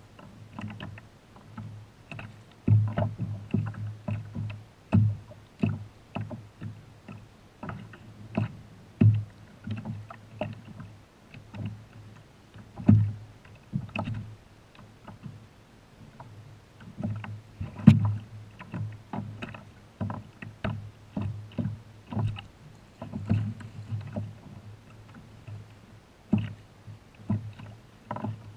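Irregular knocks and water slaps against a kayak hull, several a second, while an angler fights a fish on a bent rod.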